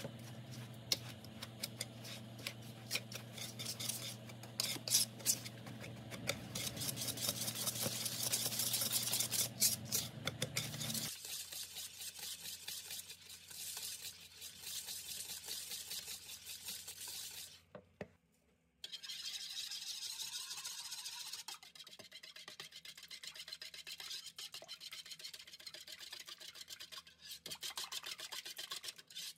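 Wire whisk stirring dry cake ingredients in a plastic mixing bowl: a fast, continuous scratching of the wires through the powder and against the bowl, over a steady low hum. After a short break about 18 seconds in, the whisk beats a bowl of wet ingredients, with lighter scraping strokes.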